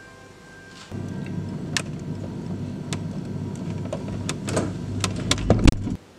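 Refrigerator humming steadily with its door open, with sharp knocks and clatter of items being shifted about inside it, the loudest near the end; the sound cuts off abruptly just before the end.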